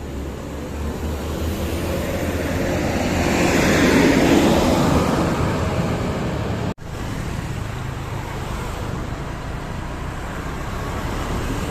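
A road vehicle passing close by: its engine and tyre noise swells to a peak about four seconds in, then fades. The sound cuts out for an instant just before seven seconds, and steady traffic noise carries on, building again toward the end.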